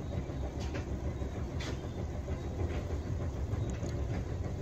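Pot of pork adobo boiling in soy sauce on an electric coil stove: a steady low rumble with a few short clicks.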